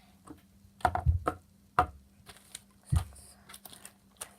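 Slime containers being handled and set down on a table while being counted: a handful of sharp knocks and dull thumps, the loudest about a second in and again near three seconds, with small clicks between.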